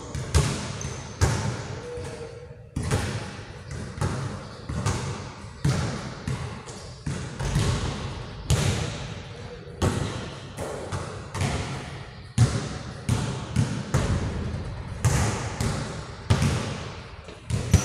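Basketball bouncing repeatedly on the court floor, with irregular hits about one or two a second, each ringing on in the echo of a large gym hall.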